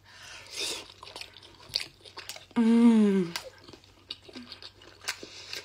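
Close-up wet chewing and mouth clicks of a person eating a saucy soup dumpling, with a soft slurping hiss near the start. A short hummed "mmm", falling in pitch, comes about two and a half seconds in and is the loudest sound.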